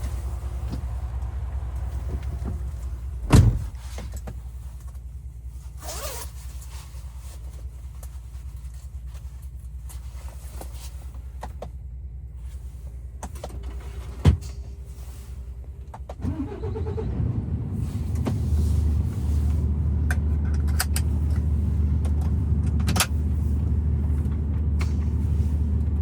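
Truck sounds: a heavy thump about three seconds in and a couple of clicks. About two-thirds of the way through, an engine starts and settles into a steady low idle.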